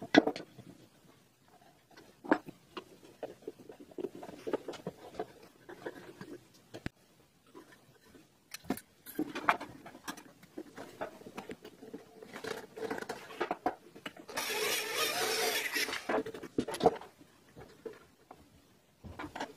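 Knocks and clatter of metal hardware and painted parts being handled and fitted together on a wooden workbench. About fourteen seconds in, a power drill runs for about two seconds.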